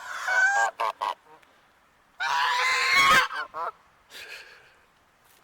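A goose honking harshly at close range: a rapid cluster of calls at the start, one long honk about two seconds in, then two shorter, fainter ones. They are the aggressive calls of a goose confronting a person.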